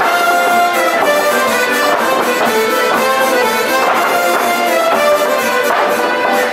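Instrumental music with brass instruments carrying a melody of held notes that change every fraction of a second to a second.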